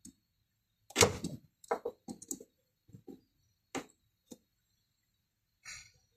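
A loud knock about a second in, then several lighter knocks and clunks, like hard objects being set down or handled. A short metallic clink rings near the end.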